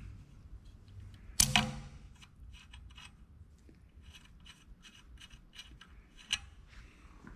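Small metal parts being worked off a bolt by hand: one loud metallic clank with a brief ring about a second and a half in, then a string of light clicks and taps and one sharper click near the end.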